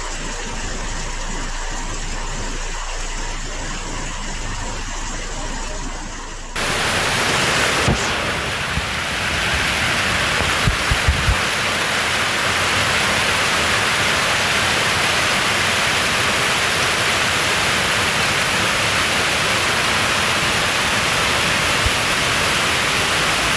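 Hailstorm: heavy hail and rain pelting down as a steady, even hiss. The sound cuts in suddenly about six and a half seconds in, replacing a quieter steady noise, and a few sharp knocks land around eleven seconds in.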